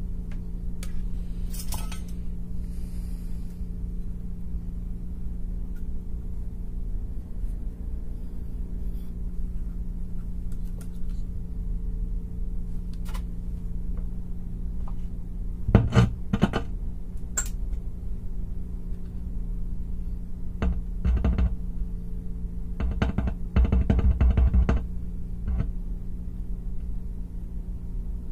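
Scattered clicks, clinks and knocks of small hardware and tools being handled during amplifier wiring, over a steady low hum. The knocks are heaviest about halfway through and again in a cluster near the end.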